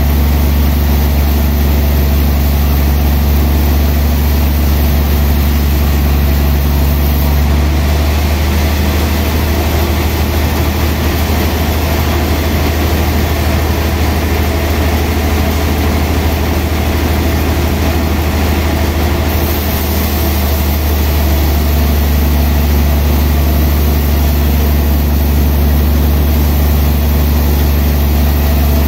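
Large sawmill band saw running with a steady low motor hum. From about a quarter of the way in to about two-thirds of the way through, the blade cuts through a big log and adds a rough hiss, then runs free again.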